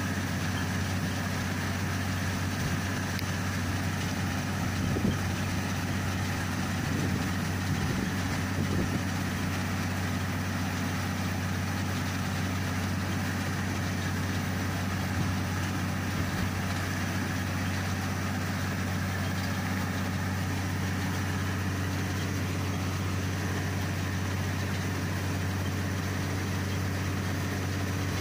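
Sperry New Holland rice combine harvester's diesel engine running steadily at constant speed, with a low, even hum and a few brief louder knocks about five to nine seconds in.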